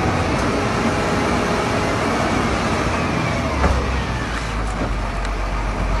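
Wheel loader's engine running with a steady low rumble as its bucket pushes into a snow bank.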